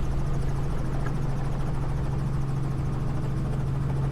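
Helicopter engine and rotor droning steadily, heard from inside the cabin as a constant low hum.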